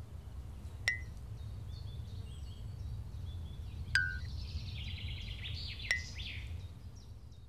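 Birds chirping and twittering over a steady low rumble. Three times a sharp click with a brief high ring cuts through.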